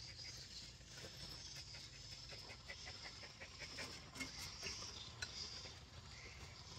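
Faint scattered clicks of chopsticks and spoons against ceramic bowls during a meal, over a steady high insect buzz.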